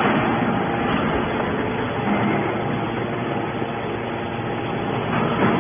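Hydraulic scrap metal baler running steadily while its ram compresses shredded scrap metal into a bale, with a brief louder rush about five seconds in.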